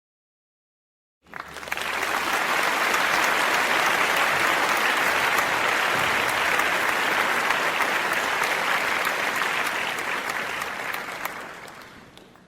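Audience applause: many hands clapping, starting abruptly about a second in, holding steady, then fading out near the end.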